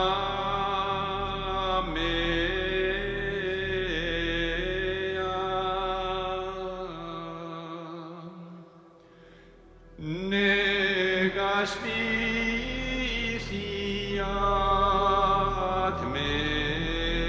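Background music: a slow chant of long sustained sung notes, stepping in pitch every couple of seconds over a steady low drone, in the manner of Gregorian chant. It fades down about seven seconds in and comes back strongly about ten seconds in.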